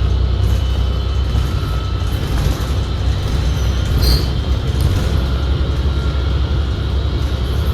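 Cabin noise of a 2019 New Flyer XD60 articulated diesel bus under way: a heavy, steady low rumble with faint steady whines above it, the transmission noise the rider calls very weird and says drowns out the engine. A brief high squeak or rattle about four seconds in.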